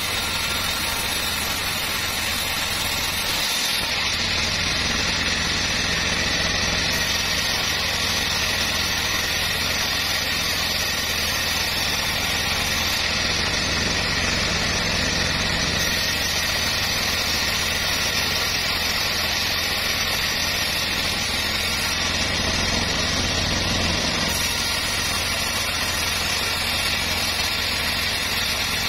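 Homemade bandsaw mill running steadily, its blade ripping a long wooden plank lengthwise as it is fed through, with a continuous machine drone.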